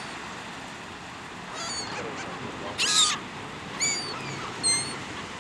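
Seagulls giving short, high squawking calls, several in a row, the loudest about three seconds in, over a steady background hiss.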